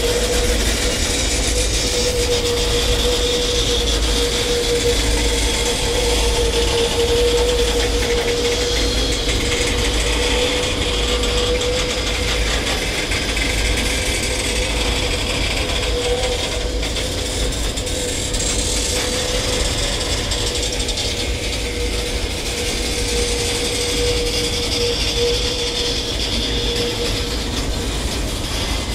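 Coal train wagons rolling past on the rails: a steady rumble of wheels on track with a continuous whine running over it.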